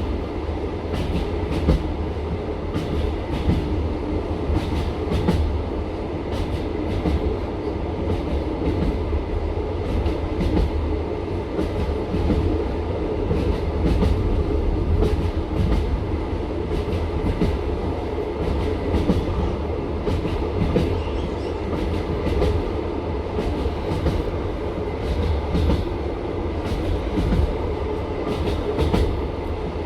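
Passenger train running at speed on the open line: the steady rumble of the carriage with the clickety-clack of its wheels striking rail joints, many sharp knocks coming close together.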